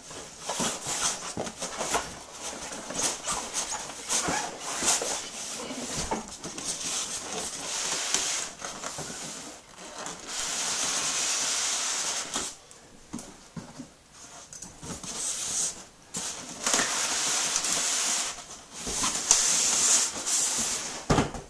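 Cardboard and styrofoam packaging being handled: scraping and rubbing as a long foam case slides out of its cardboard outer box, with several longer scrapes and scattered knocks and rustles.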